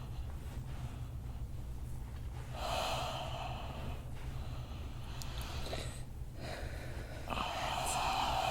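A person taking slow, deep breaths: two long, airy breaths, one about three seconds in and one near the end.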